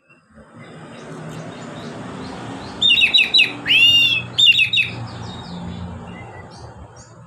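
Oriental magpie-robin singing: a quick run of sharp downslurred notes about three seconds in, then a looping whistled phrase, then another quick run, with fainter notes after, over a steady low hum.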